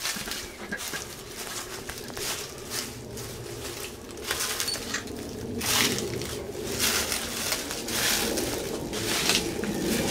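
Footsteps crunching and rustling through dry leaf litter, a short crunch about every second, as someone walks slowly.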